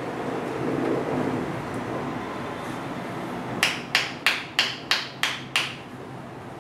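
Seven sharp hand slaps in quick succession, about three a second, a massage therapist striking the sole of a raised foot with her palm, over a steady background noise.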